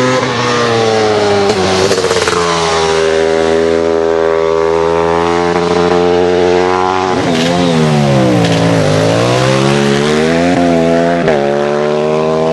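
A racing motorcycle engine runs hard at high revs under full throttle. Its pitch breaks sharply at several gear changes, and about halfway through it falls away and then climbs again.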